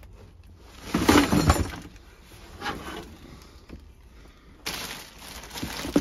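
Junk being trodden on and shoved aside: a burst of clattering knocks with glassy clinks about a second in, and a smaller rattle shortly after.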